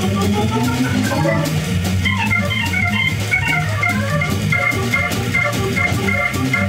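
Live jazz: a keyboard with an organ sound plays quick runs of notes over a stepping bass line, while the drums keep time on the ride cymbal.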